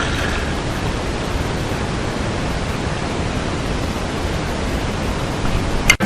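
Steady rushing outdoor noise with no distinct events, cut off by a sharp click near the end.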